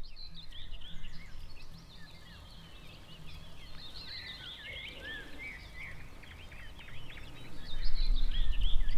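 Several songbirds singing at once, with quick overlapping chirps and whistles. A low rumble grows louder near the end.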